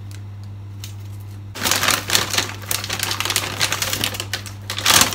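Plastic bag being pulled open and crinkled in the hands: a dense, irregular crackle that starts about one and a half seconds in and is loudest near the end, over a steady low hum.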